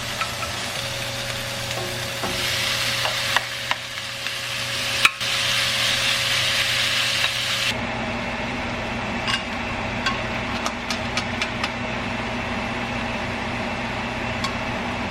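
Food sizzling in a frying pan while it is stirred, with sharp clacks of a utensil against the pan. About eight seconds in the hiss drops away abruptly to a steady hum with lighter clicks.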